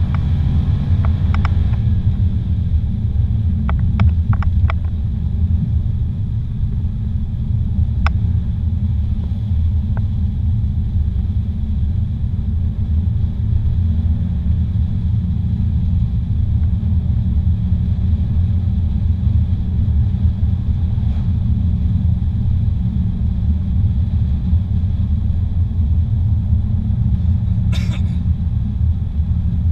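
Car driving along a paved highway, heard from inside the cabin: a steady low rumble of road and engine noise. There are a few brief clicks in the first seconds, and a short hiss near the end.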